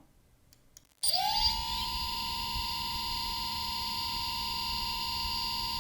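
3DR Solo quadcopter's brushless motor running alone without its propeller at 10% power. It starts about a second in, winds up quickly to a steady high-pitched electric whine and holds it.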